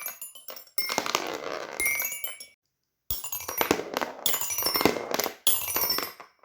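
Fidget toys handled in quick succession: a run of sharp clicks and bright little clinks, broken by a sudden cut to silence about halfway through.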